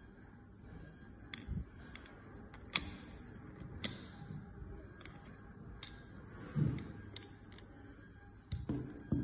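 Plastic parts of an AFMAT PSX6-9 electric pencil sharpener handled during blade checking: a string of sharp plastic clicks and taps, the two loudest about three and four seconds in, with a few dull knocks as parts are set down and fitted near the end.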